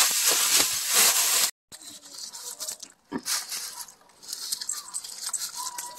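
Blanched napa cabbage being tossed with a wooden spoon in a stainless steel bowl: a wet, crackly rustling. After a brief break it turns fainter, with light pattering as sesame salt is sprinkled over the leaves.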